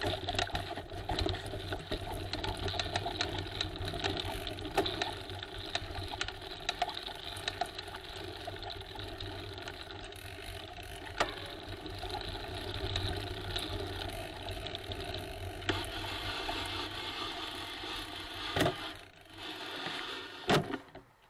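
A bicycle ridden along a rough path: steady rattling and clicking of the bike and camera mount over the ground, with tyre noise. It falls away sharply near the end.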